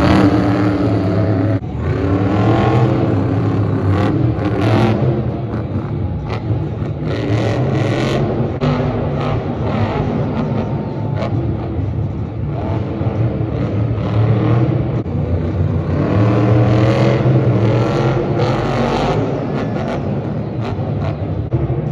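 Monster truck engines revving hard and running under load in a covered stadium, their pitch rising and falling again and again, strongest a couple of seconds in and again past the middle.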